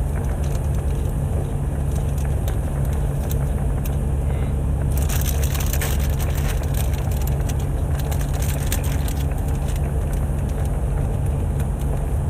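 Crunchy snack food being chewed, with bursts of crackly crunching, heaviest about five seconds in and again near nine seconds, over a steady low vehicle hum.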